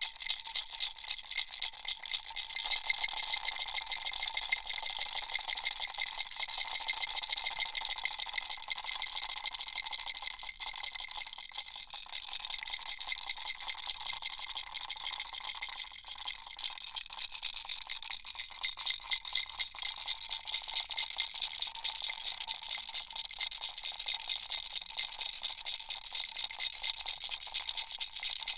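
Baby rattle shaken steadily and fast: a dense, even rattling of small pieces inside, with faint ringing tones in the first half.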